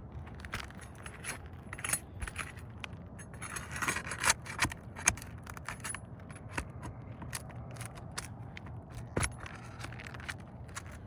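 Old asphalt roof shingles being worked loose and lifted by hand and tool: scraping with scattered sharp clicks and taps, heaviest in a dense scrape about four seconds in.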